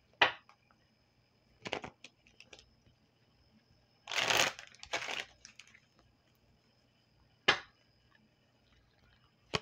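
Tarot cards being handled: a few scattered rustles and taps of the deck, the longest rustle about four seconds in and a sharp tap near the end.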